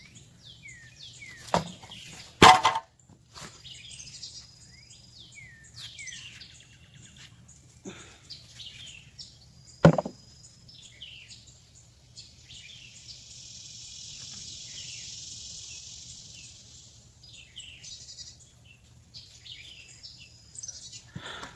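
Birds chirping outdoors, with many short downward-sliding calls, over a steady low hum. Three sharp knocks of digging, the loudest about two and a half seconds in and another near ten seconds. A steady high hiss lasts several seconds past the middle.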